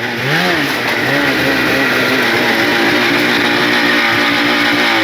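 Snowmobile engine revving up briefly, then held at high revs under steady throttle, with the revs starting to drop off at the very end.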